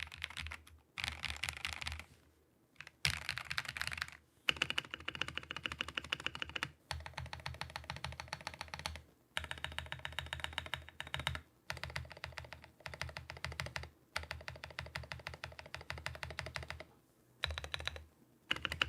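Fast typing on a custom NK87 mechanical keyboard with ASA double-shot PBT keycaps, in bursts of rapid keystrokes broken by short pauses. The Krytox-lubed stabilizers give no audible rattle.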